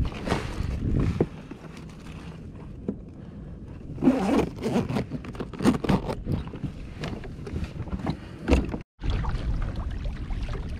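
A kayak's insulated fish bag being handled: its zipper pulled and its fabric scraping and rustling, with a run of sharp scrapes and knocks from about four seconds in. Light wind and water noise underneath.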